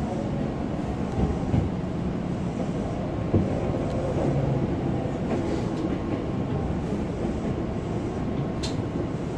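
Hankyu 7000 series electric train running, heard from inside the passenger car: a steady rumble of wheels on rail with a single short knock about a third of the way in.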